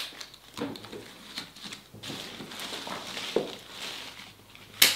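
Florist's scissors trimming holly sprigs: light rustling of leaves and stems with scattered small clicks, and one sharp snip near the end.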